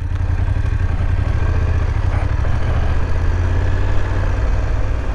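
BMW F850 GS motorcycle's parallel-twin engine running steadily at low revs.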